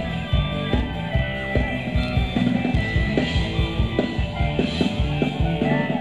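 Thai ramwong dance music played by a live band: an instrumental stretch with a steady, even drum beat and no singing.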